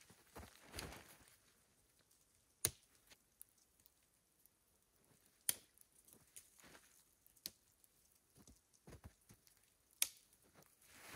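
Plastic tent clips snapping onto the poles of a dome tent as it is pitched: four sharp clicks a few seconds apart, with faint fabric rustling between.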